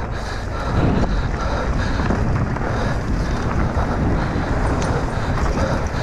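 Wind rushing over an action camera's microphone on a mountain bike ridden fast downhill, with a steady low rumble from the trail.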